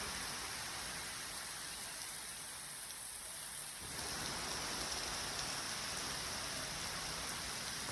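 Heavy rain falling steadily, a dense even hiss of drops, dipping slightly in level for a moment around the middle.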